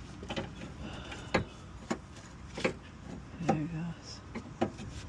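Scattered metallic clinks and knocks of hand tools and metal parts being handled in a car's engine bay, about six separate sharp strikes.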